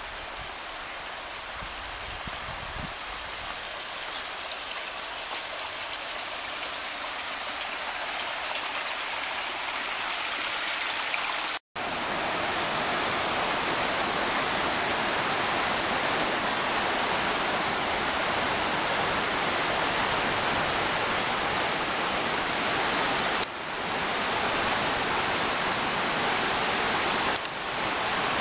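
Josephine Falls' creek cascades rushing over granite boulders, a steady hiss of white water that grows louder over the first ten seconds. After a sudden split-second dropout it comes back louder and fuller, with two small jumps near the end.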